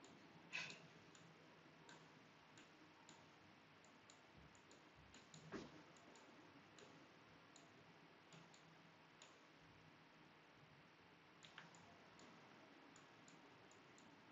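Faint, irregular computer mouse clicks over near silence, with two louder clicks about half a second in and about five and a half seconds in.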